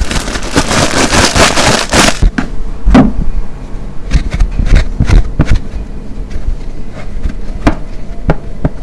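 Car wash sponge full of detergent being squeezed by hand. A dense, wet, crackling squelch runs for about the first two seconds, then gives way to scattered short squishes and clicks.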